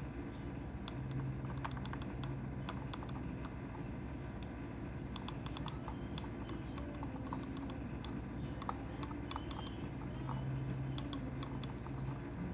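Light, irregular clicks and taps of a thin metal composite spatula against a plastic typodont tooth as composite is pressed and shaped, over a low steady hum.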